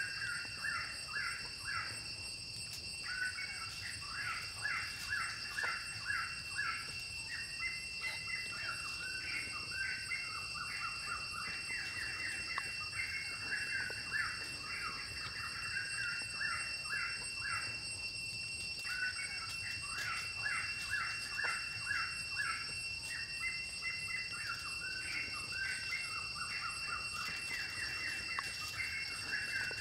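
Birds chirping in quick, repeated calls, pausing briefly twice, over a steady high-pitched whine.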